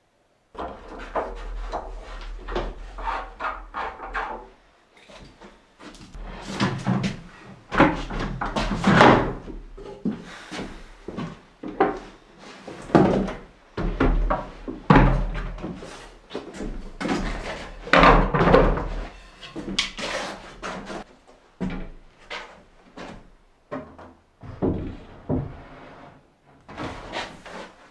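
Wooden kitchen base cabinets and a drawer unit being shifted and set into place on a plank floor: an irregular run of wooden knocks, scrapes and thumps, the heaviest near the middle.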